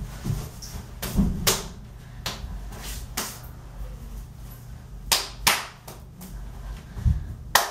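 Hands clapping and slapping together in a two-person clapping handshake routine: a string of about eight sharp claps at uneven spacing, with a few dull low thuds among them.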